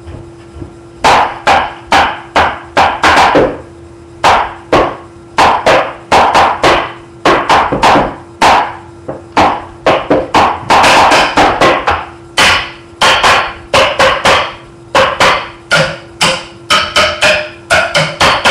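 Two chairs beaten by hand as a makeshift drum kit: a loud, irregular run of sharp whacks in quick clusters and short rolls, starting about a second in.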